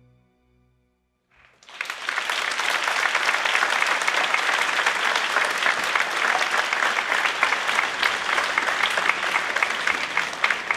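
A theatre audience breaks into applause about a second and a half in, after the music fades out, and keeps up a steady, dense clapping.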